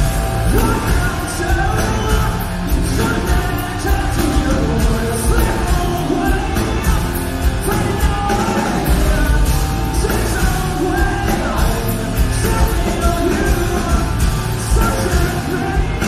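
Heavy rock band playing, with distorted guitars, bass and drums under a male lead vocal singing sustained lines. Drum hits come regularly throughout.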